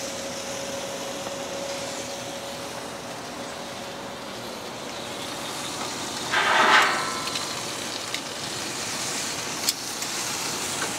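Spatchcocked chicken sizzling steadily on a hot grill grate, with a brief louder noise about six seconds in and a sharp metal click near the end as tongs touch the grate.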